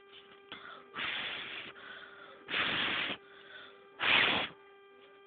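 A person blowing three short puffs of breath at a homemade anemometer to spin it, each a rush of air about half a second long, about a second and a half apart.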